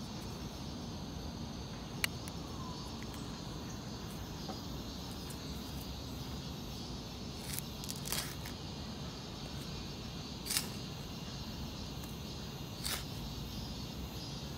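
Steady outdoor background of low rumble and a faint high steady buzz. Over it come a few short scratchy ticks, the loudest about 8 and 10.5 seconds in, as a small 3D-printed plastic shovel on the end of a pencil scrapes into dry garden soil.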